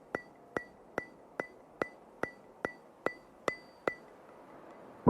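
Evenly spaced sharp ticks, each with a short bright ring, about two and a half a second, ten in all, stopping about a second before the end.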